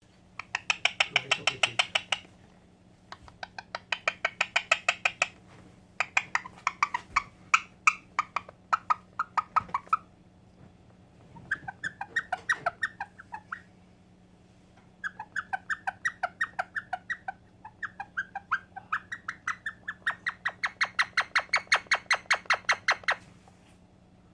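Indian ringneck parakeet calling in rapid bouts of sharp repeated notes, about seven a second, each bout lasting one to three seconds with short pauses between.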